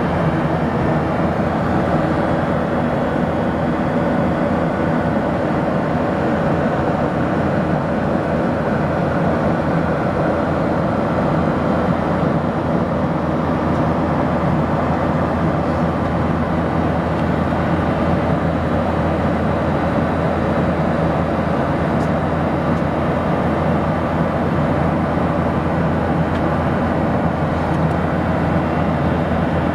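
Steady cabin noise inside a Boeing 737-800 in flight: an even drone of the engines and airflow, with its weight low down and no change in pitch or level.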